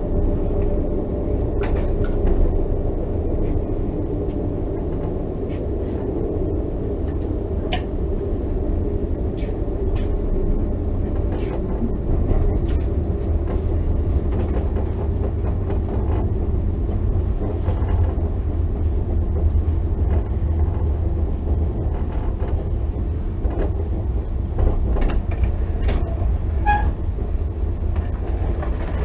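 Metra commuter train car running on the rails, heard from inside the coach: a steady low rumble with scattered clicks and knocks from the wheels and track.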